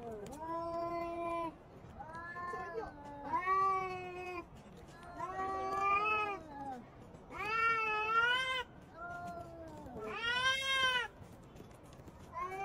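Cats yowling at each other in a face-off: a string of about eight long, wavering yowls of about a second each, rising and falling in pitch, the typical threat calls of cats squaring up to fight.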